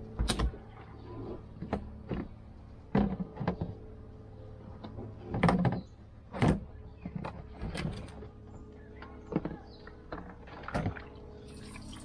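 Plastic picnic cooler being set down on a wooden deck and handled, its lid and body knocking and clunking about ten times at uneven intervals, over a steady low hum.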